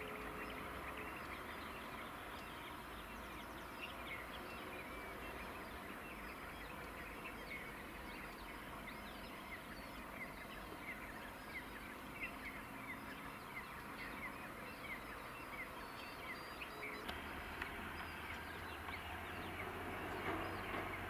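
Many small birds chirping and calling, short scattered chirps over a steady low background hum. In the last few seconds a low drone from an approaching train comes in and slowly grows.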